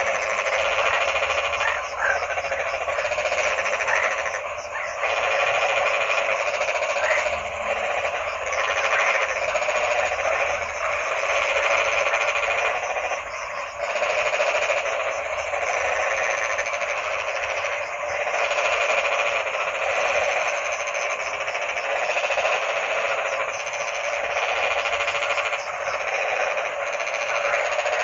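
Dense chorus of many croaking frogs, a continuous wall of calls that dips briefly every few seconds.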